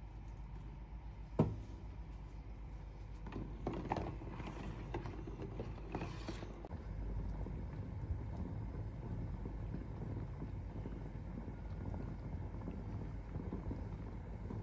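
Kitchen handling sounds. About a second in there is one sharp knock, and a few seconds later a burst of clattering and scraping of cookware, followed by a steady low rumble.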